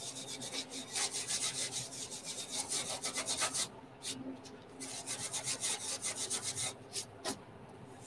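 Hand scrubbing on the painted panel of an A-12 aircraft starter cart: quick back-and-forth scratchy strokes, several a second, with a short pause about halfway through.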